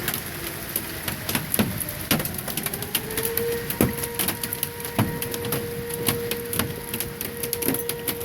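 Marble-sized hail striking in dense, irregular clicks and cracks while a tornado warning siren sounds. The siren's tone rises about three seconds in and then holds steady.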